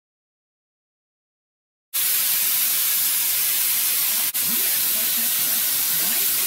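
Compressed-air spray gun with a cup canister hissing steadily as it sprays upholstery adhesive onto a motorcycle seat's foam and cover. It starts suddenly after about two seconds of silence and breaks off briefly a little past the middle.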